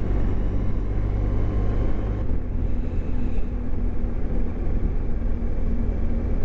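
Motorcycle engine running while riding, with a steady low rumble on the on-bike microphone. The engine note shifts about two seconds in and then holds a steady hum.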